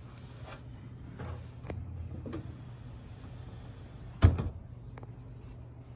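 Handling noise as a 20-inch box fan is turned around, with faint rustles and one sharp knock about four seconds in, over a steady low hum.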